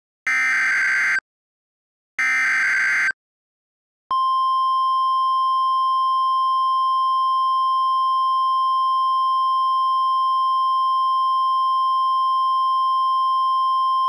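Emergency Alert System SAME header data: two harsh, buzzing bursts of about a second each. About four seconds in, the NOAA Weather Radio 1050 Hz warning alarm tone starts, one steady tone held for about ten seconds and cutting off sharply. Together they announce the activation of a weather alert.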